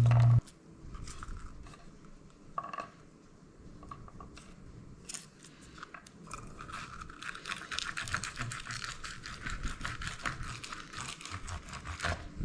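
Garlic cloves being rolled inside a silicone tube garlic peeler, their papery skins crackling and rustling as they come loose. A few scattered crackles at first, then a dense, rapid run of crackling from about halfway through.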